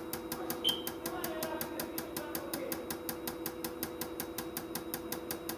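Fuel injectors from a Toyota 2TR-FE engine clicking rapidly and evenly, about five clicks a second, as a Launch injector cleaner & tester fires them in a flow-uniformity test, over the bench's steady hum. They are now spraying evenly after cleaning.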